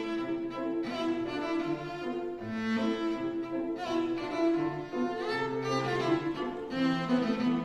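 Cello playing a melody in bowed notes, accompanied by a grand piano.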